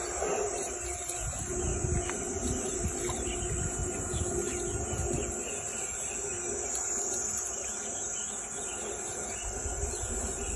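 Steady, high-pitched chorus of insects, with a low uneven rumble underneath.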